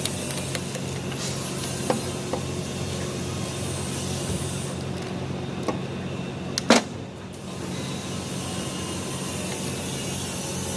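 Gearbox parts and tools being handled during a gearbox overhaul: a few sharp knocks, the loudest a quick double knock about two thirds of the way through, over a steady low hum and hiss.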